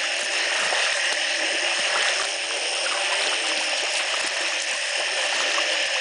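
A dense chorus of many frogs calling after the first heavy rain broke a drought: a steady din, with lower calls sliding in pitch that repeat throughout.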